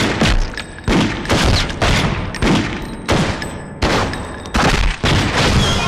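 Gunfire in a film shootout: about ten revolver shots in quick, uneven succession, each with a ringing tail.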